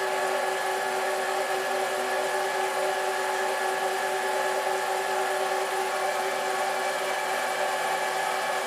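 Harbor Freight #93212 mini lathe running steadily at low speed with the leadscrew power feed engaged. Its motor and gears give a steady whine of several held tones over a mechanical hum.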